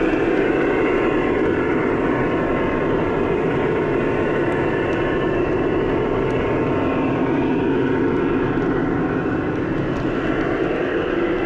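O-scale Lionel model train running steadily around the loop, with the rumble of its wheels on the rails and the hum of its motor.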